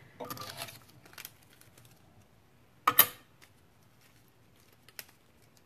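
Craft tools being handled on a table: a short rustle, a few light clicks, then a sharp double clack about three seconds in and a smaller click about two seconds later, as things are set down.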